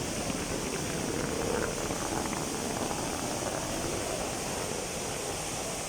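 Steady din of a busy airport forecourt, with traffic and a crowd's hubbub blending into one even noise and faint voices now and then.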